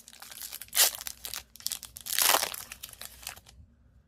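Hockey card pack wrapper being torn open and crinkled by hand, a run of crackling rustles with two louder rips, one just under a second in and one just after two seconds.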